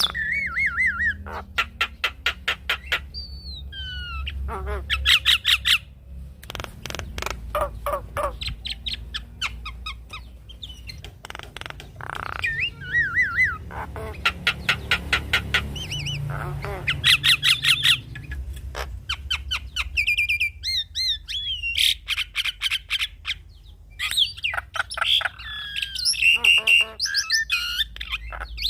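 Jalak kebo (Javan myna) song: fast rattling trains of harsh clicks alternate with short whistled notes that glide up and down.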